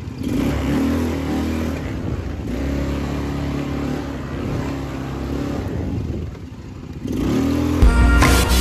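ATV engine running under way on a rough trail, its pitch rising and falling with the throttle and easing off briefly before the end. Music comes in near the end.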